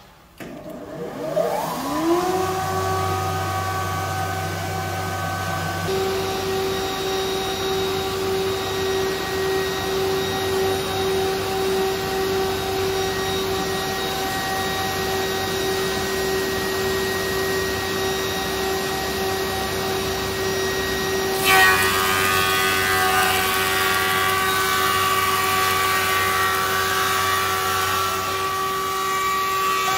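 IWM top and bottom planer with multi-rip starting up: its motors spin up with a rising whine and settle into a steady running hum. About two-thirds of the way through, wood feeds through the cutter blocks, and a louder, rougher cutting sound lasts over the running motors.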